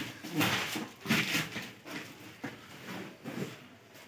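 Plastic wrapping and bubble wrap on a parcel crinkling and rustling in irregular bursts as hands press and handle it.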